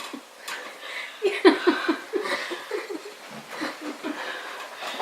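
People laughing, with runs of quick, repeated chuckles.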